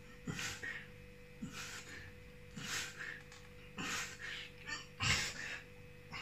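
A man breathing hard through push-ups, a sharp breath with each rep, about once a second, five in all.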